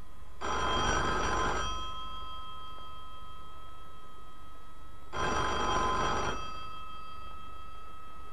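Desk telephone bell ringing twice, each ring a little over a second long, about five seconds apart.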